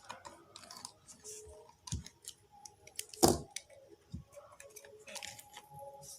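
Scattered light clicks and taps from taking apart a portable speaker: a screwdriver on the last screw and the circuit board being worked out of its plastic casing. One louder knock comes about three seconds in.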